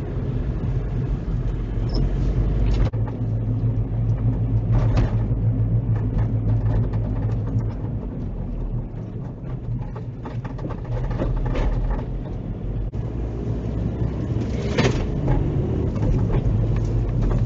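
Engine and tyre noise inside a moving car, picked up by a dash cam's microphone: a steady low rumble with a couple of brief knocks. The rumble shifts abruptly twice, about three seconds and thirteen seconds in.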